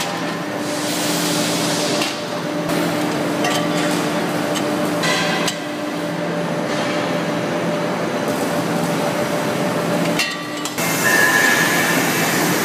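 Factory machinery humming steadily at a gas-cylinder valve-screwing station, with metal knocks and clinks as brass valves are screwed into the steel cylinders. The sound changes abruptly a few times.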